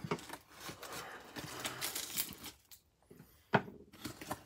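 Cardboard shipping box rustling and scraping as it is handled and pulled open, then a sharp knock about three and a half seconds in.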